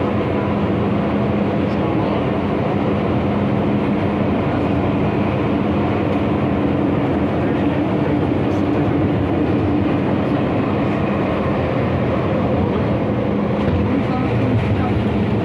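MTR M-Train electric multiple unit running at speed, heard from on board: a steady rumble of wheels on rail with a low, even hum.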